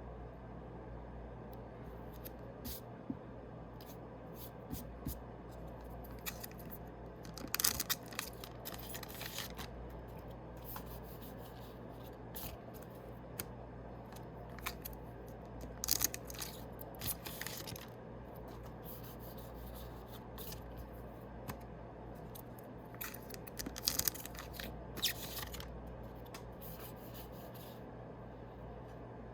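Yu-Gi-Oh booster packs being opened and their cards handled: three bursts of crinkling and rustling about eight seconds apart, with small clicks between, over a steady low hum.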